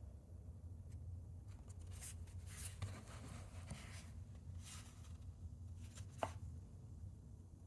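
Faint handling of the toy's packaging: a few short rustles and scrapes, then one sharp click about six seconds in, over a steady low hum.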